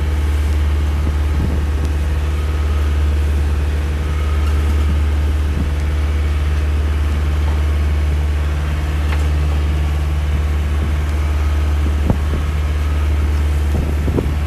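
Motorboat engine running steadily with a deep, even drone, and a light knock near the end.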